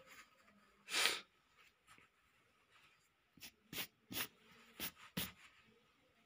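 Pencil scratching on paper in quick short strokes, five in about two seconds. Before them, about a second in, comes one louder brief rush of noise.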